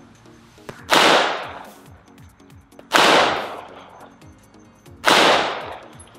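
Three 9mm pistol shots from a Gen5 Glock 17 firing Fiocchi 115-grain ammunition, spaced about two seconds apart in slow, aimed fire for an accuracy group. Each shot cracks sharply and rings out, fading over about half a second.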